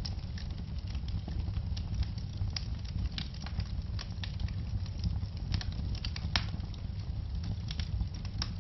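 Wood fire burning in a fireplace: a steady low rumble of flames with frequent sharp, irregular crackles and pops.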